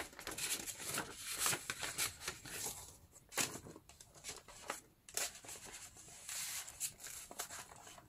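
Paper rustling and swishing as the pages, tucks and envelopes of a handmade paper journal are turned and handled, in irregular short rustles.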